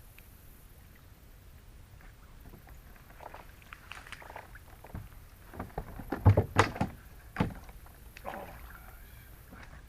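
Knocks and clatter on a kayak hull from moving about and handling gear. They are scattered at first, then come loudest in a cluster about six to seven seconds in.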